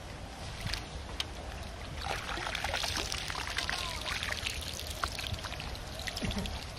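Water pouring and trickling out of a hand lift net as it is hauled up out of a pond, starting about two seconds in after a couple of short clicks, then running steadily.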